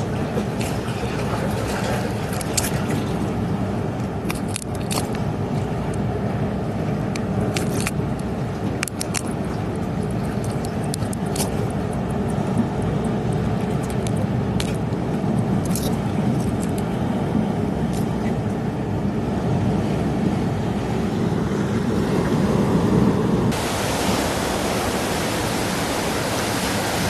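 Steady low rumble of wind and surf on a rocky shore, with scattered sharp clicks and scrapes. Near the end the sound suddenly turns to a brighter, hissing wash of breaking waves.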